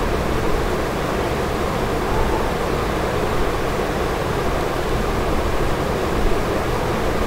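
Steady background noise, a hiss with a low rumble, holding level throughout with no distinct events.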